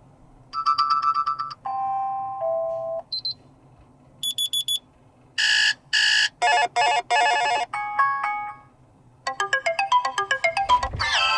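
Amazon Fire 7 tablet's built-in alarm tones previewed one after another: about seven short electronic snippets of chimes, beeps and quick melodic patterns, each cut off after a second or two with a brief gap before the next.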